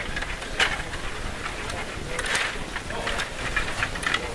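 Stiga table hockey game in play: irregular sharp plastic clicks and clatter of the puck and figures, with rattling from the rods being pushed and spun.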